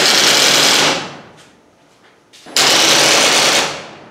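Screw-drive garage door opener running in two short bursts of about a second each, a loud rattling buzz, stopping each time because it cannot lift the door: a torsion spring is broken.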